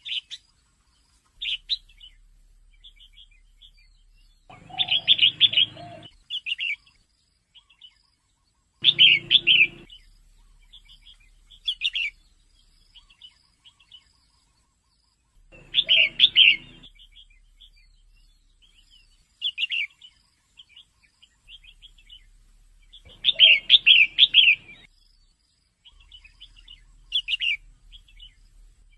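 Female red-whiskered bulbul calling in short bursts of bright chirps every few seconds, with softer scattered chirps between. The loudest bursts come about five, nine, sixteen and twenty-four seconds in.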